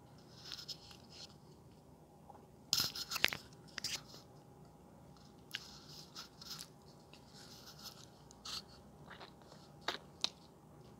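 Wet chewing and lip smacks of someone eating soft, creamy durian flesh close to the microphone. A short run of louder mouth clicks comes about three seconds in.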